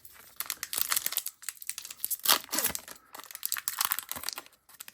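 Crinkling and crackling of a hockey-card pack wrapper and cards being handled, a run of short irregular crackles with the loudest about halfway through.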